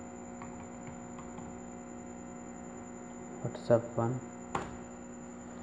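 Steady electrical mains hum on the recording, with a few faint keyboard taps as a file name is typed and one sharp click about four and a half seconds in.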